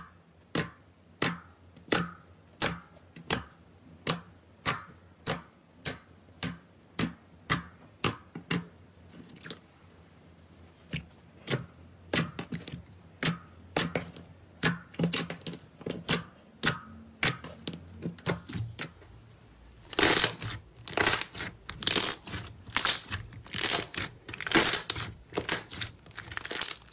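Fingers pressing and poking glossy clear slime, making sharp clicking pops about twice a second. About twenty seconds in these give way to louder, longer squishy crackles about once a second as a second slime is pressed flat by hand.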